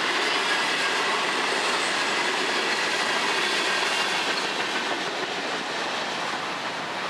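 Freight cars of a long Florida East Coast Railway freight train rolling past, steel wheels running on the rails in a steady rumble. The sound eases off in the second half as the last car goes by and the train moves away.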